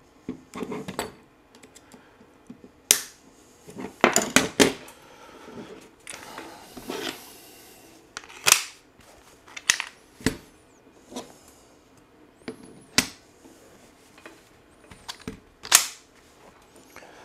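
Hard plastic dust-boot parts knocking and clicking as they are handled, fitted together and set down on a wooden bench top by hand, with a metal hex key in use. It is a run of separate sharp clicks and taps with a short rustle about six seconds in, and a loud click near the end as the brush skirt is pressed onto the boot.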